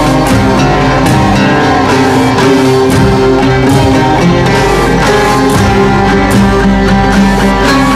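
Live-looped improvised Arabic music: plucked oud and bowed viola over a repeating drum loop, with a steady low drone underneath.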